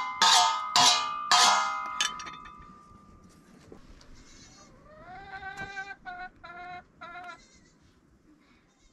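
Rhythmic strikes with a steady ringing tone, about two a second, fade out about two seconds in. From about five seconds in, a sheep or goat bleats in a run of short, quavering calls.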